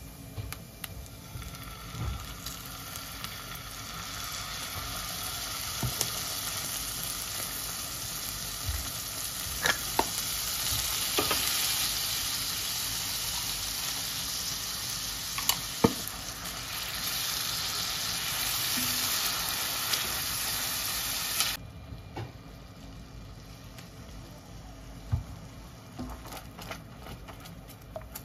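Finely chopped aromatics and then ketchup frying in oil in an enameled cast-iron pan: a steady sizzle with a few sharp clicks. The sizzle drops off suddenly about three-quarters of the way through, leaving a fainter sizzle.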